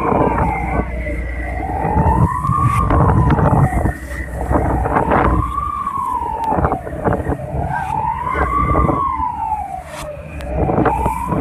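A siren wailing, its pitch rising and falling about every three seconds, over heavy wind and rough sea noise.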